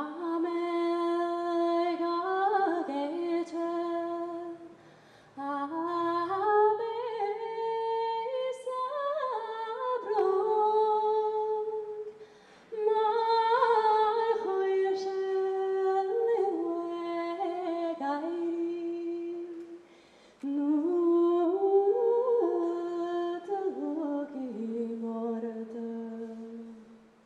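A woman singing a slow melody alone, without accompaniment, in four long phrases of held notes with short breaths between them, the song ending on a low held note. It is a song from the Irish repertoire she sings.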